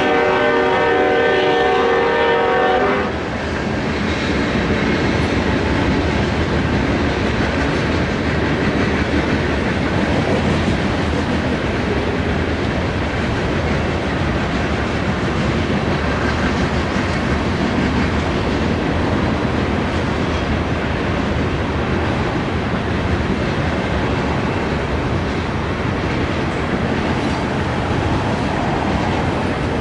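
BNSF locomotive horn sounding a held chord that cuts off about three seconds in. It is followed by the steady, loud rolling noise of a loaded coal train's cars passing on the rails.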